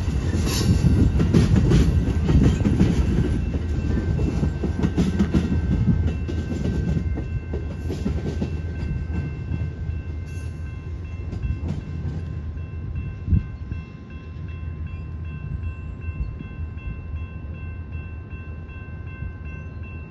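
Amtrak Superliner bilevel passenger train rolling past, its wheels rumbling on the rails and fading as the last car goes by and the train pulls away. Steady high-pitched tones ring over the rumble from a few seconds in, and there is a single sharp knock about two-thirds of the way through.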